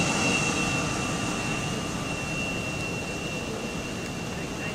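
Jet engines of a twin-engine airliner during the landing roll: a continuous rushing noise with a steady high whine, slowly fading as the aircraft moves away.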